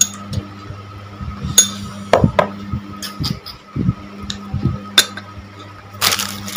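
A spoon clinking against a tall drinking glass as a drink is stirred, a handful of sharp separate clinks over a steady low hum. Near the end comes a crinkly rustle of a plastic packet being handled.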